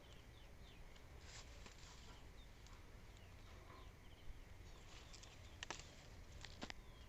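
Faint rustling and a few sharp snaps of grass stems being picked by hand, over quiet outdoor background with faint bird chirps.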